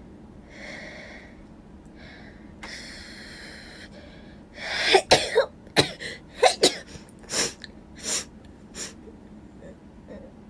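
A person sneezing in rapid succession, about eight short, sharp sneezes packed into some four seconds, after a few breathy inhales.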